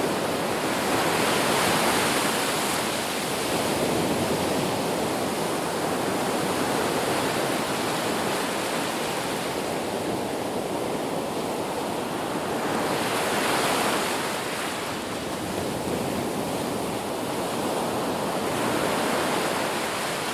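Sea waves breaking on a shore: continuous surf wash, with a louder rushing surge about two seconds in, again near the middle and once more near the end.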